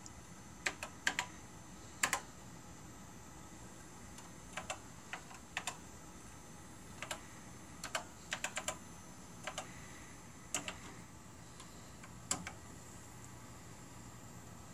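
Keys typed on a Televideo 910 terminal keyboard: sharp key clicks, often in quick pairs, coming in short runs, entering a login name and password. The last keystroke falls a couple of seconds before the end.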